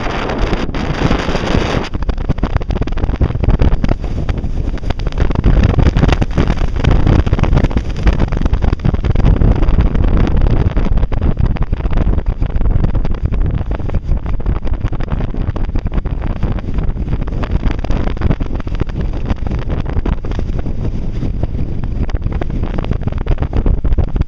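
Wind buffeting the microphone over the low rumble of a Jeep driving along a dirt trail. A brighter hiss in the first couple of seconds cuts off suddenly.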